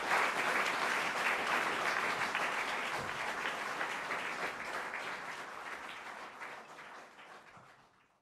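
Concert audience applauding, the clapping fading gradually away and ending just before the close.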